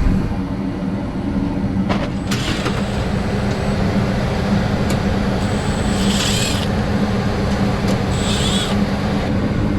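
Gas furnace running with a steady low hum of its fan and burners. A few sharp clicks, and two short high-pitched chirps about six and eight seconds in.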